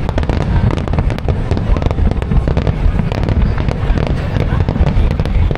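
Aerial fireworks bursting in rapid succession: a continuous run of deep overlapping booms with many sharp crackles.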